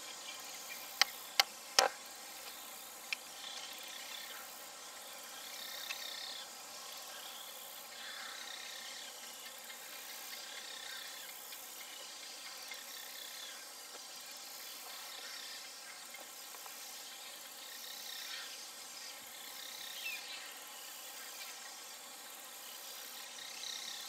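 Steady chorus of summer insects with a rise and fall in intensity. Three sharp clicks close together come between one and two seconds in, and they are the loudest sounds.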